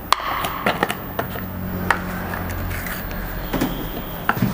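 Plastic lid of a large whey protein tub being twisted off and set down on the tabletop, then a hand rummaging inside the tub for the scoop: a series of sharp plastic clicks and knocks.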